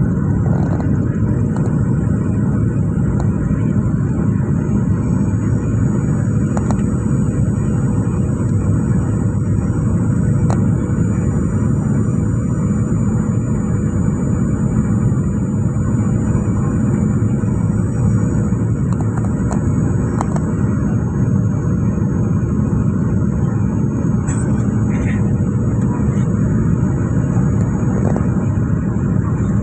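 Steady cabin noise of a Boeing 737-800 descending on approach: the rush of airflow and the CFM56-7B engines running, with a thin high whine held over a loud low rumble.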